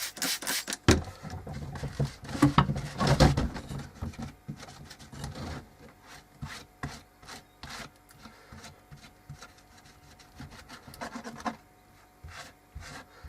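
Irregular rubbing and scraping strokes as wet two-part epoxy is smoothed off along a wooden roof ridge, busier and louder in the first half, then lighter and more scattered.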